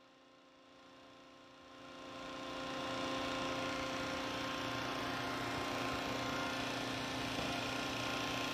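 Rebuilt Howa HH36C-8 hydraulic rotary actuator and its hydraulic supply running on a test rig: a steady machine sound with several held tones over a hiss. It grows louder over the first three seconds, then holds steady.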